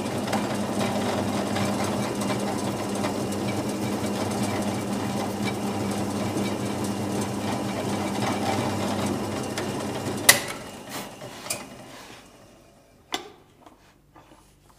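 Drill press running steadily as its twist bit drills through a wooden block clamped in a vise and into a sacrificial backing piece, which keeps the exit side of the hole free of tear-out. About ten seconds in there is a sharp click and the motor runs down, then a couple of knocks as the vise is moved on the table.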